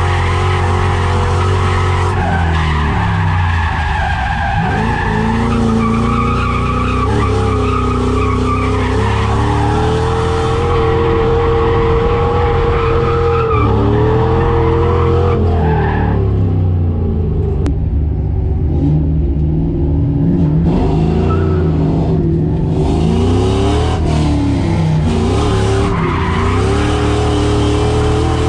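Inside the cabin of an SN95 Ford Mustang drift car on a drift run: the engine revving up and down again and again, with the tires skidding and squealing.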